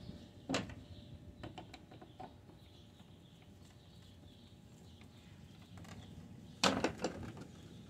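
Screwdriver tip working plastic push-pin retainers out of an engine-bay trim panel: a few light plastic clicks, then a louder pair of clicks near the end as a pin is pried loose.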